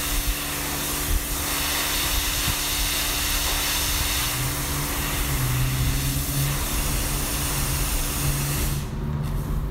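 A detailing machine running, giving a loud, steady hiss of a jet over a low hum; the hiss cuts off near the end.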